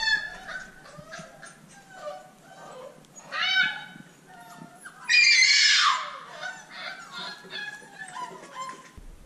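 Basenji puppies whining and squealing: many short, high-pitched cries that bend in pitch, with two louder, longer cries about three and a half and five seconds in.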